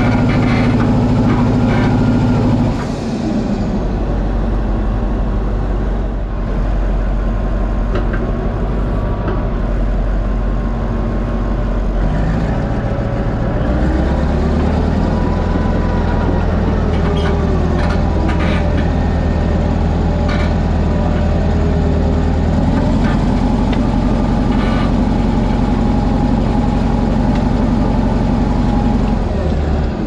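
Caterpillar D11 bulldozer's diesel engine running under heavy load as it drags tractors and a dump truck on tow straps; the steady engine drone shifts in pitch a few times, with occasional sharp clanks.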